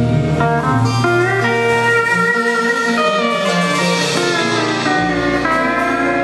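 Live country band playing an instrumental passage, led by a guitar with sliding, sustained notes over bass.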